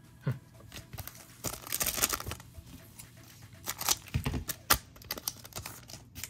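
Foil trading-card pack wrapper crinkling and rustling in gloved hands, in two bursts, one about a second and a half in and another around four seconds, with a few sharp light clicks between.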